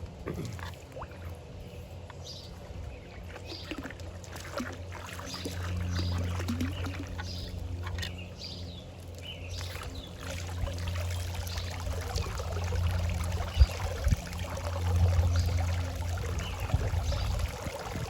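Water pouring from the outlet of a wood-fired barrel pool heater into the pool, with a steady low hum underneath.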